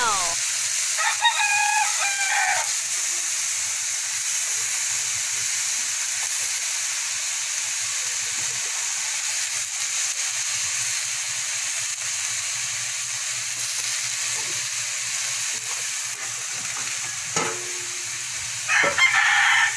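Green beans sizzling in hot oil in a metal wok, a steady frying hiss. A rooster crows once about a second in.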